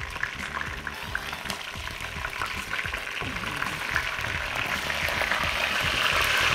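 Chicken pieces sizzling in hot ghee and oil in a frying pan, with a few light clicks of tongs; the sizzle grows louder toward the end.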